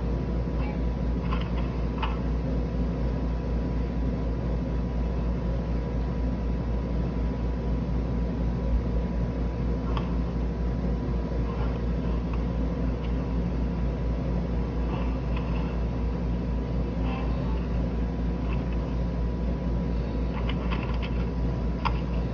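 Steady low mechanical hum with a faint pulsing beneath it and a thin steady whine above, broken by a few light clicks and taps.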